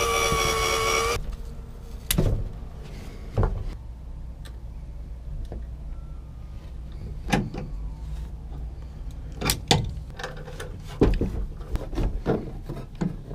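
An 18V cordless drill runs with a whine that rises and then holds steady, stopping about a second in. Scattered clicks and knocks follow as turnbuckle hardware is fitted by hand to the wooden frame in a truck bed, with a low steady hum underneath.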